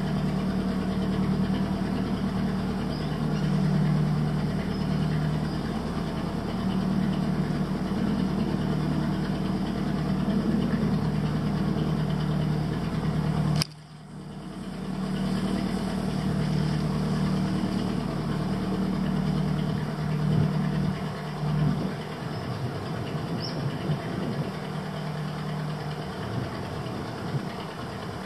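Small motorboat's engine running steadily at low cruising speed. About halfway through there is a sharp click and a brief drop in level before the engine returns, and in the last several seconds its note turns thinner and uneven.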